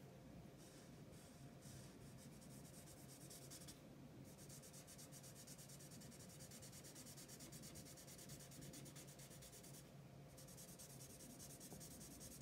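Marker nib rubbing over paper in quick, short back-and-forth strokes, faint, with brief stops about four seconds in and again near ten seconds.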